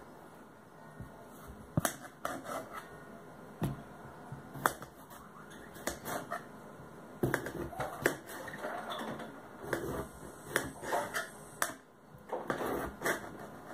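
A kitchen knife cutting a raw beetroot on a cutting board: irregular sharp knocks of the blade hitting the board, coming more often from about halfway through.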